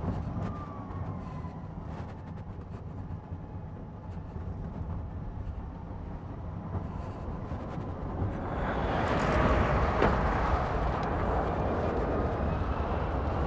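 Drayson B12/69EV electric racing car at speed: a low steady hum with a faint falling whine near the start. About 8 seconds in, a loud rush of tyre and air noise swells, peaks near 10 seconds and stays loud, with a faint rising whine over it, as the nearly silent car runs flat out down the runway.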